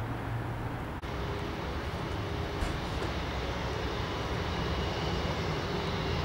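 Boeing 777-200LR's GE90 turbofan jet engines running as the airliner taxis: a steady rush of engine noise with a faint, steady whine. The sound dips briefly about a second in at an edit and then continues unchanged.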